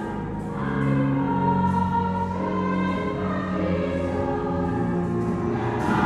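Gospel choir singing long held chords, swelling a little about a second in.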